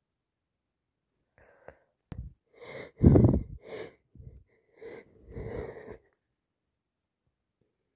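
A person with a heavy head cold goes through a sneeze build-up: a few catching gasps, then one loud wet sneeze about three seconds in, followed by several shorter gasping breaths.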